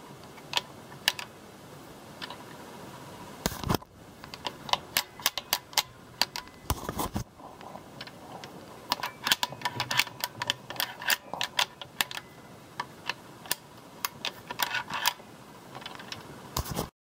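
Irregular light metallic clicks and clacks of a Powerglide automatic transmission's internal shift linkage (manual lever, parking pawl and detent spring) being worked by hand, with two heavier knocks, one about three and a half seconds in and one around seven seconds. The sound cuts off suddenly near the end.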